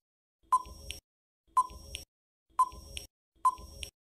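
Countdown timer sound effect: four short, identical ticking pings about one a second.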